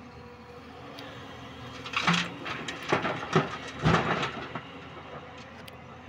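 A load of rock and earth drops from an excavator bucket into a steel tipper truck body: about two and a half seconds of loud clattering and thudding, starting about two seconds in, over the steady running of the excavator's diesel engine.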